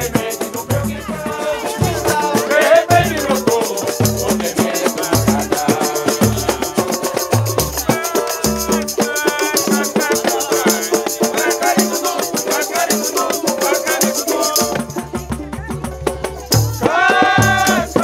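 Live samba from a roda: pandeiros shaking and jingling over a deep hand drum keeping a steady beat, with a samba banjo and voices singing along. The jingles drop out briefly near the end while the singing gets louder.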